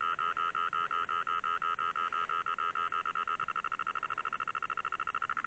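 An electronic beeper sounding a rapid, steady stream of high-pitched beeps, about eight a second, quickening from about halfway through.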